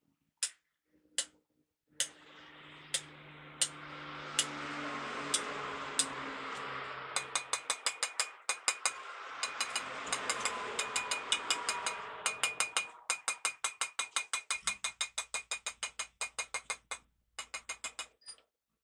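Steel hammer and drift punch striking a truck wheel hub: a few separate ringing blows about a second apart, then a long, fast, even run of metallic clicks, about four or five a second.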